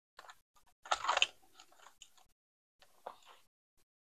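Clear plastic cash envelopes rustling as pages of a ring-binder budget wallet are handled and turned: a few soft rustles, a louder one about a second in and another about three seconds in.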